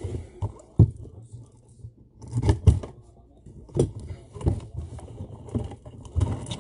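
A cardboard trading-card box being handled and opened by hand: irregular knocks, taps and scrapes of cardboard as the inner box comes out.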